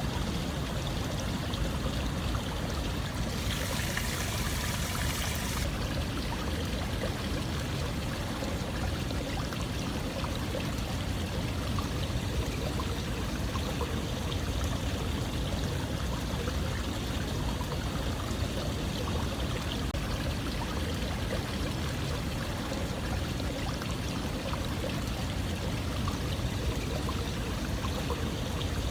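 Running water in a steady, even rush. About three seconds in, a brighter hiss joins for two seconds or so.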